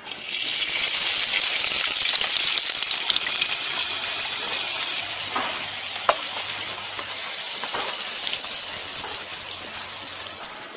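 Rice-flour and jaggery batter deep-frying in hot oil in a clay kadai: a loud sizzle begins about half a second in as the batter hits the oil, eases off, and swells again near the end. A sharp click stands out about six seconds in.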